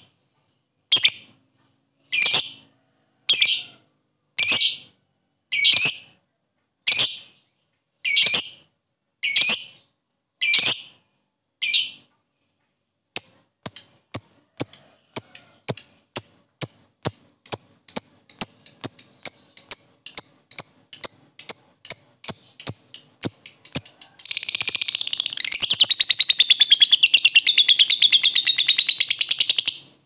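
Lovebird calling. Separate sharp chirps come about once a second, then after a short pause a run of shorter chirps speeds up. In the last six seconds it merges into a continuous rapid chattering trill that cuts off suddenly: the long 'ngekek' that lovebird keepers prize.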